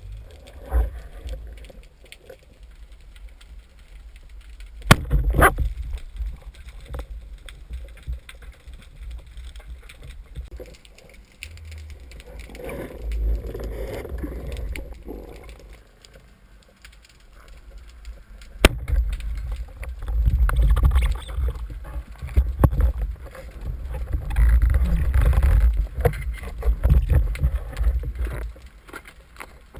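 Muffled underwater sound picked up by a camera in its housing: low rumbling water movement that swells and fades, with two sharp clicks, about five seconds in and near the middle.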